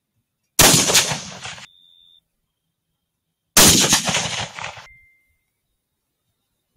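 Two rifle shots about three seconds apart, each a sharp crack that echoes away for about a second before cutting off abruptly.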